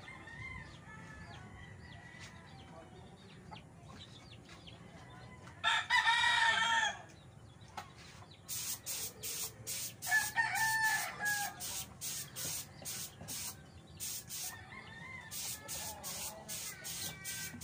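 A rooster crows loudly about six seconds in and again, shorter, a few seconds later, with chickens clucking faintly around it. From about halfway through, short high hisses repeat about twice a second.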